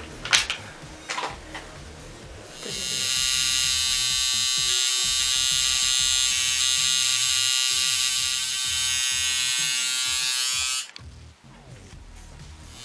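Coil tattoo machine buzzing steadily against the skin. The buzz starts about two and a half seconds in and cuts off suddenly near the end, after a few short knocks at the start.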